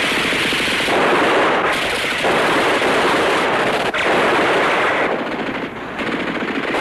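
Sustained machine-gun fire in rapid bursts with overlapping gunshots, swelling and easing about every second, a little lighter just past the middle.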